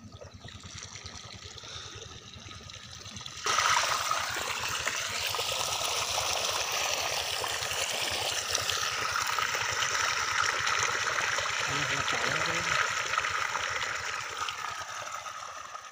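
Pumped irrigation water gushing out of the end of a plastic irrigation pipe onto a sack and running into a field channel. It becomes suddenly louder about three and a half seconds in.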